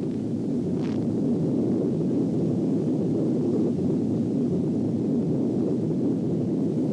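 Low, steady rumble of a large explosion, an even roar with no pitch to it.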